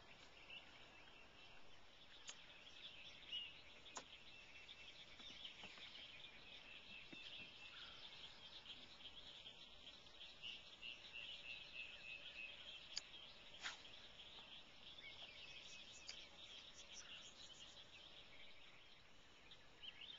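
Faint outdoor chorus of chirping birds and insects, with a few sharp clicks.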